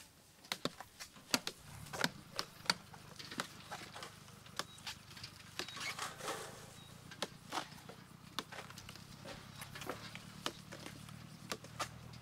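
Irregular sharp knocks and clicks, several a second, some louder than others, over a low steady hum that comes in about two seconds in.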